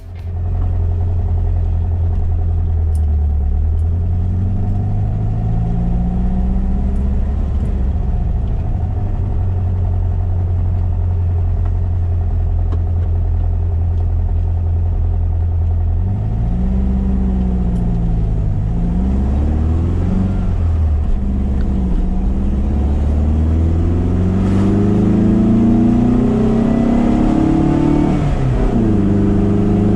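1973 VW SP2's air-cooled flat-four with dual 40 carburettors and stainless exhaust, heard from inside the cabin while driving: the engine note climbs under acceleration and drops back at gear changes, with several quick rises and falls in the middle and a long pull near the end.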